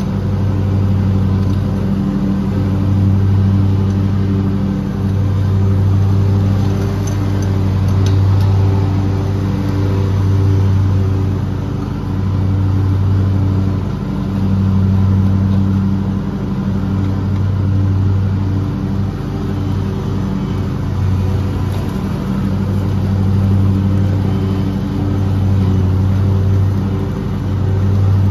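Lawn mower engine running steadily while cutting grass, a low hum that swells and eases every few seconds.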